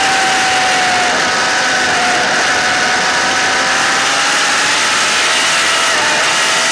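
Sport motorcycle engine running hard at high revs through a long leaning corner, its note sagging slightly and then holding steady. Heavy wind rush on the bike-mounted action camera's microphone.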